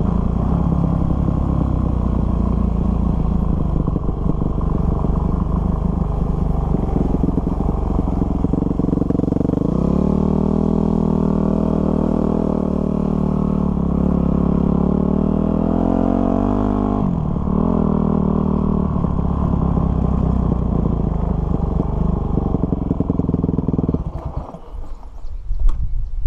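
Dirt bike engine heard from on board as it rides a dirt trail, the pitch holding steady for several seconds about halfway through, then dropping off sharply. The engine sound falls away about two seconds before the end as the bike comes to a stop.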